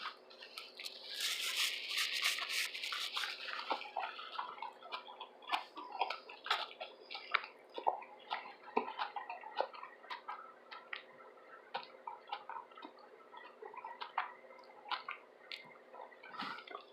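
Close-miked chewing of a tuna sub loaded with vegetables. A crunchy bite or chew fills the first few seconds, then steady chewing with many small wet mouth clicks.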